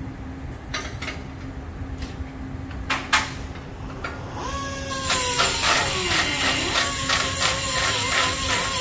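A few sharp metal clanks, then about halfway through an air tool starts and runs with a fast rattle and a whine that dips in pitch and recovers. A steady low shop hum sits underneath.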